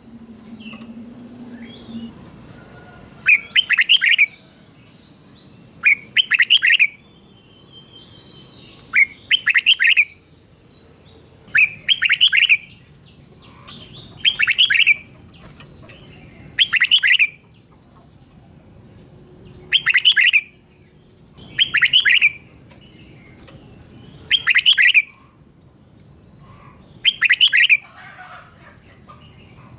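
Red-whiskered bulbul singing its doubled ('berl') song, the style Thai keepers play for young birds to copy: short, bright phrases repeated about every two and a half seconds, about ten in all.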